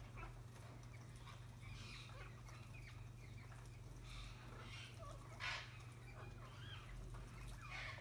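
Green parakeets giving short, faint chirps and squawks now and then, with one louder squawk about halfway through, over a steady low hum.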